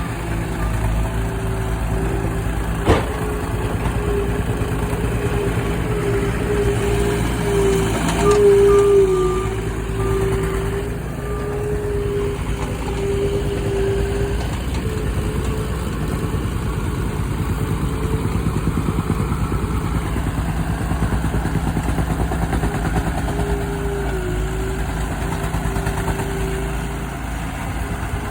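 Skid steer's diesel engine and hydraulics working steadily with a wavering whine, its reversing alarm beeping at the start and again about nine seconds in. One sharp knock about three seconds in.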